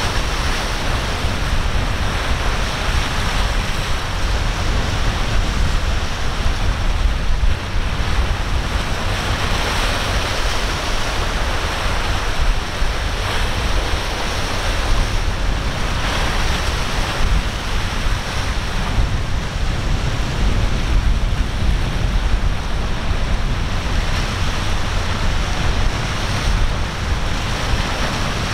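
Ocean waves breaking and surging in rough water, with wind rumbling heavily on the microphone. The sound is a steady wash with no clear engine note.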